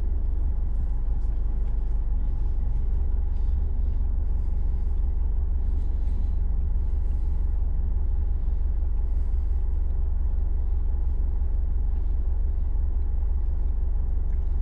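Steady low rumble of a car idling, heard from inside the cabin, with faint chewing sounds now and then.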